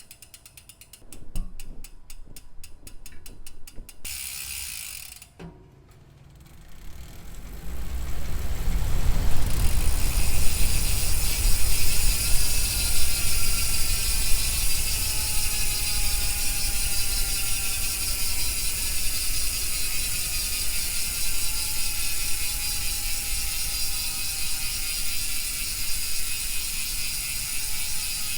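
Shimano FH-MT401 rear freehub clicking as the wheel freewheels after a year of riding: separate quick clicks in the first few seconds, then from about eight seconds in a loud, fast steady buzz whose pitch slowly falls as the wheel spins down.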